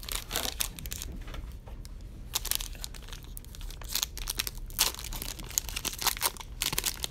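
Wrapper of a Select football card pack being torn open and crinkled in the hands, an irregular run of crackles.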